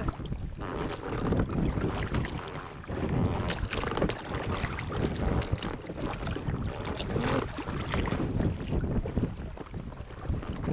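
Wind buffeting the microphone on a small boat on the river, with water sounds and frequent small knocks and rustles from handling on board.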